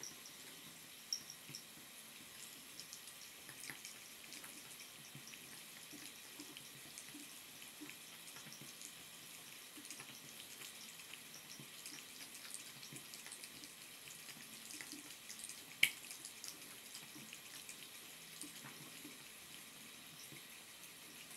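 Faint dripping from a bathroom sink faucet, with a cat licking and lapping at the drips. It comes as light, irregular ticks over a soft hiss, with a sharper click about a second in and a louder one about three-quarters of the way through.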